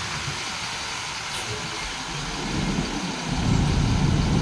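Diesel bus engines running in a terminal, with a low rumble that grows louder about three seconds in.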